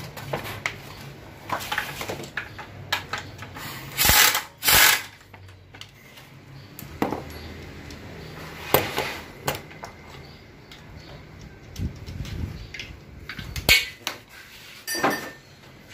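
Metal tools clinking, tapping and scraping on the aluminium valve body and case of a Toyota Soluna automatic transmission being taken apart, with two short, loud, hissing bursts about four seconds in and more sharp knocks later.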